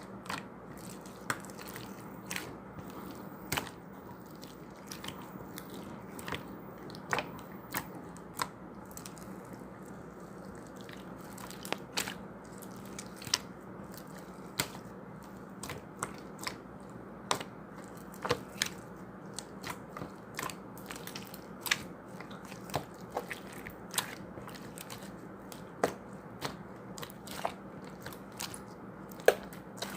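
Irregular sharp clicks and crunches, roughly one or two a second, over a steady low hum.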